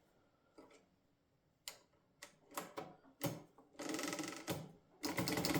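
Mercedes Model 8 typewriter being tried out after reassembly: a string of separate clacks as keys, including the backspace key, are pressed, then a rapid rattling run about four seconds in and another starting near the end.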